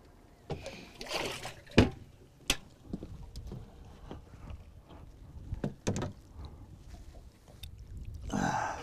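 Sharp knocks and bumps on a fiberglass boat's deck and hatches as fish are handled at the livewell, the loudest about two seconds in, with short rushes of water sloshing about a second in and again near the end.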